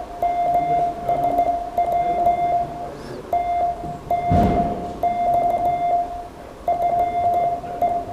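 Morse code (CW) sent as a single steady mid-pitched tone, keyed on and off in quick runs of characters with short gaps between groups. There is a dull thump about four seconds in.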